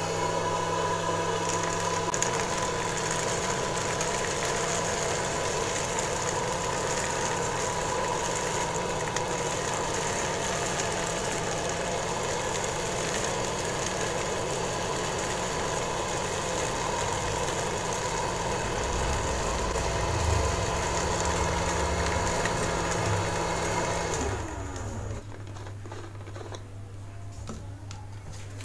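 Small DC motor of a homemade plastic-bottle vacuum cleaner running at a steady high speed, then switched off about 24 seconds in, leaving only a low steady hum.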